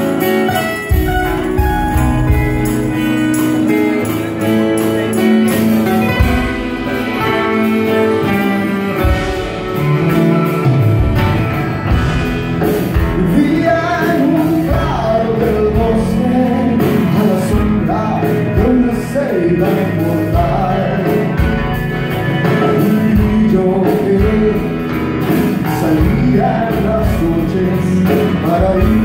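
Live band music: acoustic guitars with drums and keyboard, and a wavering melody line carried above them.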